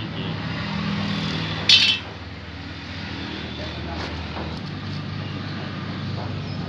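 A single ringing metallic clink about two seconds in, as a steel bar or tool strikes the clamped saw blades, over a steady low mechanical hum.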